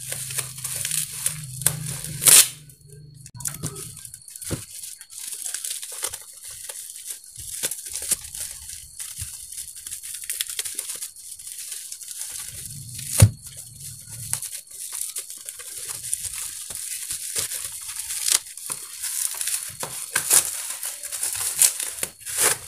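Plastic bubble-wrap packaging crinkling and tearing as hands pull it off a box, with many small crackles and two sharp, loud cracks, about two seconds in and again about thirteen seconds in.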